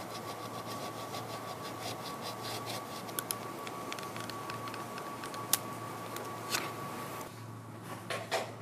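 Old adhesive tape being peeled off plastic drafting film with tweezers, crackling in quick, even ticks that thin out into a few sharper clicks. Under it runs a steady machine hum with a high tone, which cuts off near the end, followed by a brief rustle of the film.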